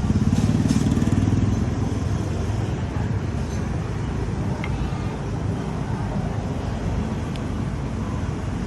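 A low, steady engine rumble, louder for the first second and a half and then settling.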